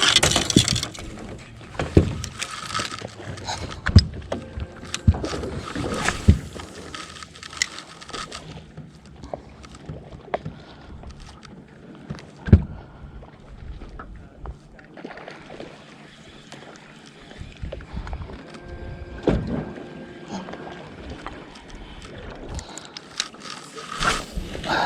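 Scattered knocks and clicks, the sort made by gear bumping a small boat, over a low wash of water and wind.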